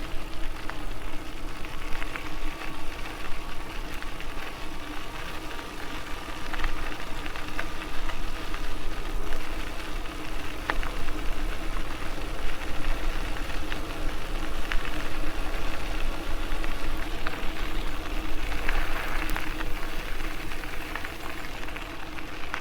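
Electric bike under way: the steady whine of its 750 W electric motor over a constant rush of tyre and wind noise, with occasional light clicks.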